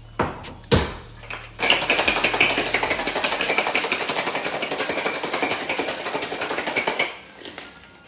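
A few sharp knocks of the metal tins, then ice cubes rattling hard and fast inside a two-tin metal Boston cocktail shaker for about five seconds, stopping suddenly about seven seconds in.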